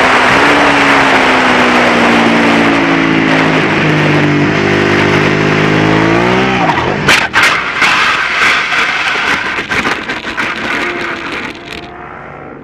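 Suzuki SV650 race bike's V-twin engine running hard, its pitch stepping with gear changes, then rising sharply and cutting out about six and a half seconds in as the bike crashes. A string of knocks and scraping follows as the bike slides and tumbles, growing quieter near the end.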